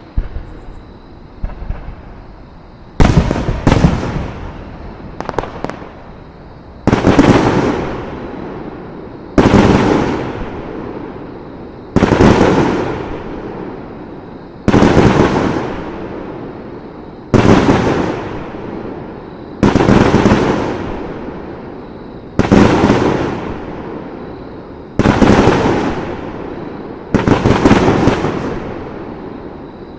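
Fireworks shells bursting one after another, a sharp bang about every two and a half seconds, each trailing off in a fading rumble and crackle. A few smaller pops and cracks come in the first few seconds before the steady run of bangs starts.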